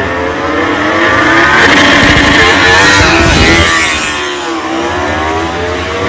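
MotoGP racing motorcycles' four-cylinder engines revving hard, several at once, their pitch climbing and falling as the throttles are blipped and opened.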